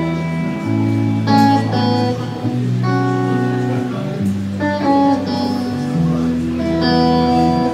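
Live band playing a slow instrumental passage: guitar notes over sustained low notes, the chord changing every second or two.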